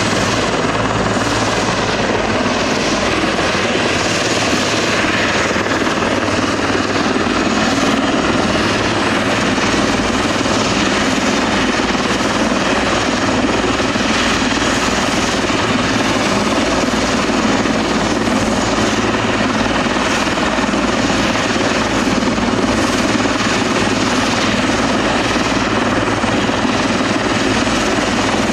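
Eurocopter EC145 air-ambulance helicopter running on the ground with its main rotor turning: a loud, steady din of turbine and rotor that holds unchanged throughout.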